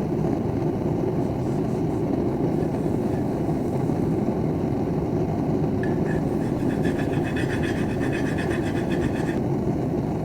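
A forge running with a steady low rumble. From about six seconds in, a fine, fast crackling rattle joins it for about three and a half seconds, then stops.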